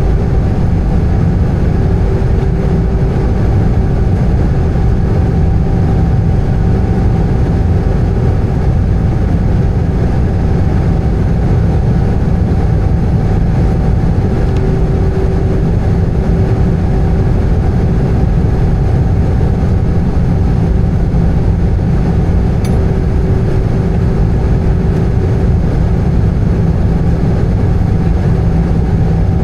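Steady drone of an Airbus A320's jet engines and airflow heard inside the passenger cabin, deep and even, with a few faint steady tones running through it.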